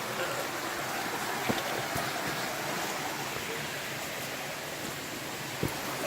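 Makamakaole Stream flowing over rocks: a steady rush of water, with a few faint knocks.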